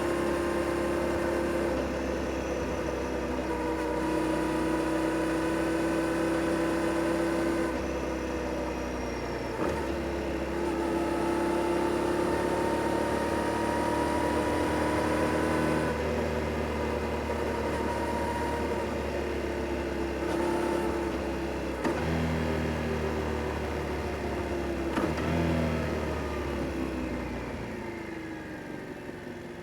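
Yamaha Tracer 7 GT's 689 cc parallel-twin engine running through its stock exhaust while riding, its pitch changing in steps as it shifts gear and revs. Near the end the pitch falls and the sound gets quieter as the bike slows.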